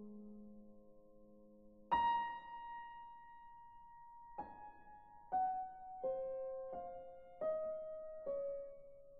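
Slow, sad solo piano music: a held low chord fades away, then about two seconds in a single high note sounds and a melody of single notes follows, stepping slowly downward about one note a second.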